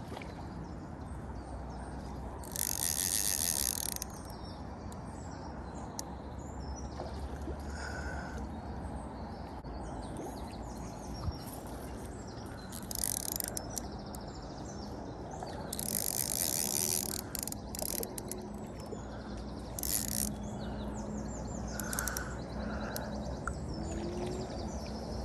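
Fishing reel's drag clicking in several short rapid bursts as a hooked common carp pulls line off. The longest bursts come a few seconds in and again past the middle. Birds chirp now and then over steady outdoor background noise.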